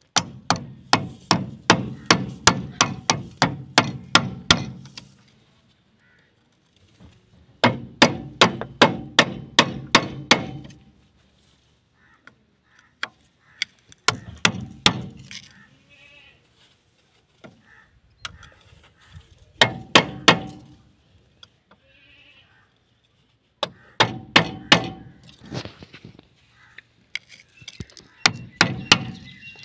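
Repeated hammer blows on a steel bar driving the worn oil seal off a John Deere tractor's front wheel spindle: rapid strikes, about three a second, in runs of several seconds with pauses between.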